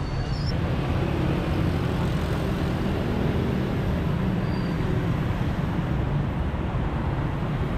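Road traffic: cars and motorcycles running past on a busy street, a steady rumble.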